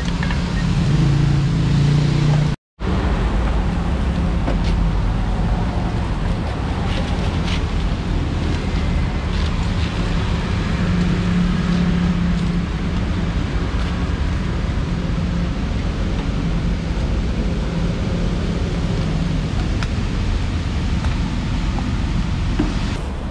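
Steady road traffic noise with a low rumble and a few faint clicks, broken by a split-second silent gap about two and a half seconds in.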